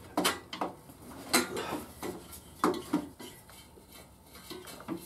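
A motorcycle's chrome exhaust pipe being worked into place at the engine's exhaust port: about half a dozen sharp metal clinks and knocks over the first three seconds, quieter after.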